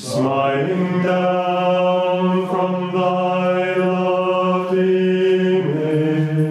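Male voices chanting Latin plainchant: one long sung phrase held on nearly level notes, moving to a lower note near the end.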